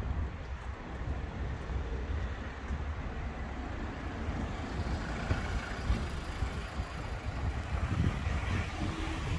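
Wind rumbling on the microphone over road traffic noise, the traffic swelling about halfway through.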